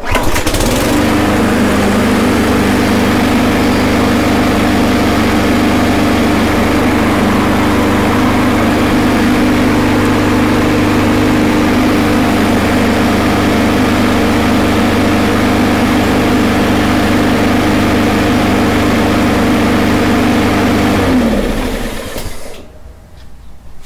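Gravely walk-behind mower's small single-cylinder engine catches and runs at a steady speed for about twenty seconds on its replacement carburettor, then is shut off and winds down near the end. It is running with the fuel cap very loose, to test the owner's suspicion that a cap on too tight was blocking the tank vent and starving the carburettor.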